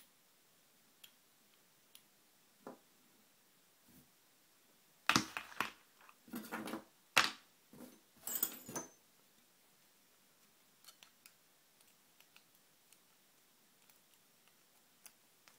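Small metallic clicks and scrapes of a tool prying at the circlip on a brass Vita half euro lock cylinder, with a burst of louder clicking and scraping in the middle, one of them a bright metallic ping.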